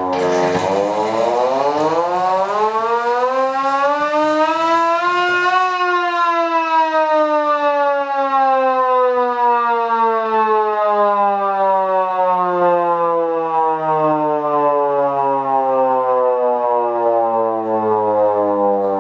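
Hand-cranked aluminium signal siren wailing. Its pitch rises steadily for about six seconds as it is cranked up, then slowly falls as it winds down.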